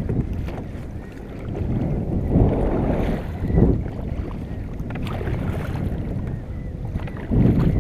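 Wind buffeting the microphone on a kayak at sea, rising and falling in gusts, with water sloshing around the hull.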